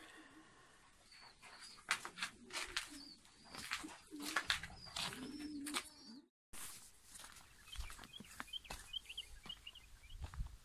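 Birds calling: low cooing and high curved whistles in the first half, then, after a brief break in the sound just past halfway, a quick run of small high chirps. Scattered clicks and rustles run throughout.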